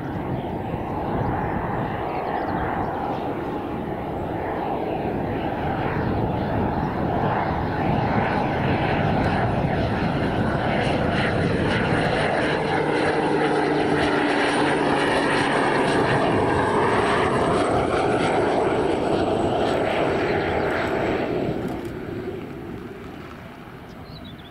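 Pilatus PC-12 single-engine turboprop on low final approach, its engine and propeller drone growing louder as it comes overhead, then falling away sharply about 22 seconds in as it flares to land.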